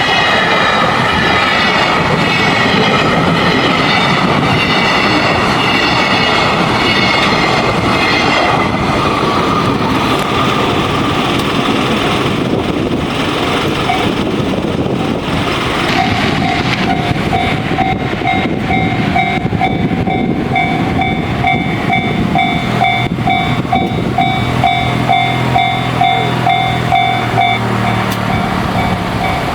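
Freight train hauled by an EF210 electric locomotive passing over a level crossing, its wheels and wagons making a dense rolling clatter, with a high, slightly falling whine over the first eight seconds or so. From about halfway, the crossing's electronic JR-standard alarm rings in a steady, evenly repeated pattern that stands out as the train noise thins.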